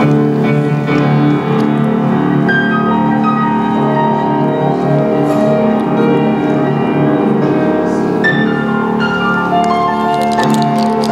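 Grand piano playing a slow piece, with chords held under a higher melody line.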